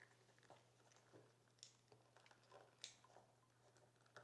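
Near silence: a steady low hum and a few faint clicks and rustles of a plastic wire harness being handled.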